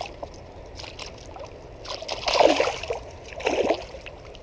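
Hooked smallmouth bass splashing at the water's surface: two splashes about a second apart, over the steady wash of the creek.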